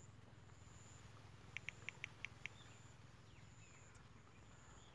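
Near silence, broken about a second and a half in by a quick run of six faint clicks within a second: a smartphone's on-screen keyboard sounding as keys are tapped to type a word.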